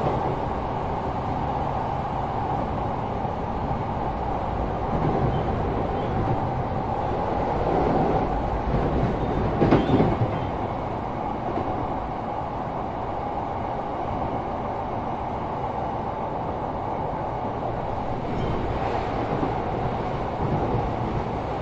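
Interior running sound of a Sotetsu 12000 series electric train motor car with Mitsubishi IGBT-VVVF traction control, travelling between stations. The wheels rumble steadily on the rails under a steady motor hum, with a louder surge of rumble about ten seconds in.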